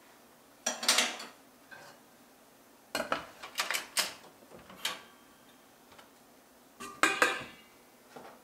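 Metal pot and lid of a Shuttle Chef thermal cooker clattering as the lid is set on the inner pot and the pot is lowered into its insulated outer container and closed. Three clusters of knocks, about a second in, from about three to five seconds, and about seven seconds in, the last with a brief metallic ring.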